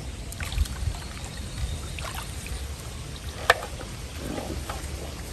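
Water trickling and sloshing over a low steady rumble, with small scattered clicks and one sharp click about three and a half seconds in.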